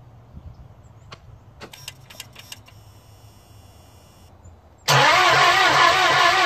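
Isuzu 4HK1TC 5.2-litre four-cylinder turbo diesel being cranked by its starter without firing, with a glow plug out and a compression gauge in its place. The cranking cuts in abruptly about five seconds in, after a few light clicks, and rises and falls in a steady rhythm with the compression strokes. The cylinder under test reads under 100 psi, which is low.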